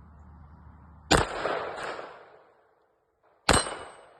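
Two single 9mm shots from a Masterpiece Arms Defender pistol, about two and a half seconds apart, each dying away over about a second.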